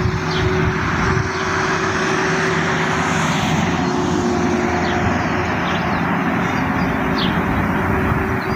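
An engine or motor running steadily at an even level, with a constant hum. A few short high chirps sound over it.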